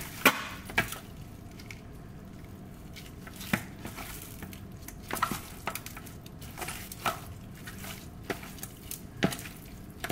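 Food frying in a pan with a steady sizzle, while a utensil knocks against the cookware in sharp clacks about ten times.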